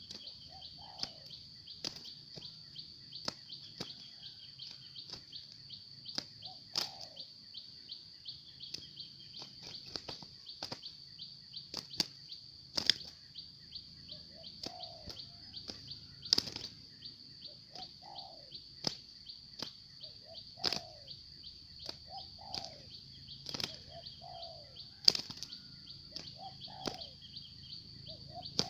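Spotted doves giving short falling calls, repeated every second or two, over a steady high insect drone, with sharp irregular clicks throughout.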